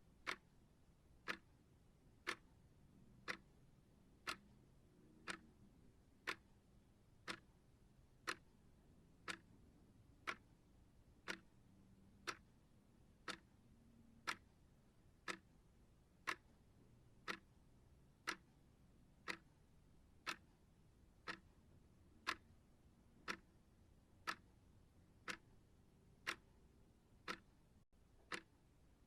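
Steady clock-style ticking of a study timer: one sharp tick each second, even and unchanging.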